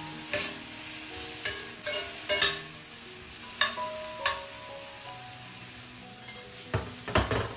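Onions and sliced tomatoes sizzling in an iron frying pan, with a spatula stirring, scraping and knocking against the pan at irregular moments.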